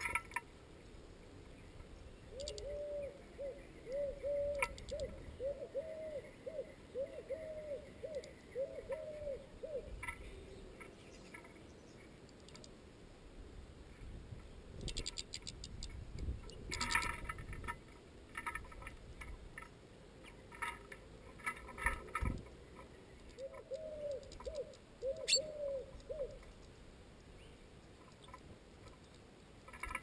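A bird's low hooting call, repeated about twice a second for several seconds and then again briefly near the end. Between the calls, small birds peck and tap at sunflower seeds in a metal feeder.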